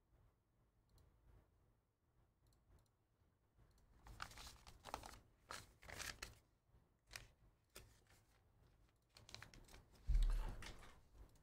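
Faint clicking, then from about four seconds in irregular crinkling and tearing of packaging being handled, with a heavy thump on the desk about ten seconds in.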